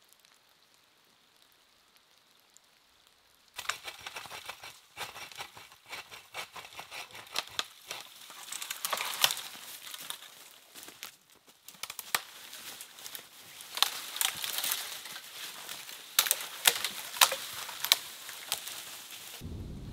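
Near quiet for about three and a half seconds, then dry leaf litter and twigs crunching and crackling as a dead branch is gathered and dragged across the forest floor, with several sharp snaps of dead wood.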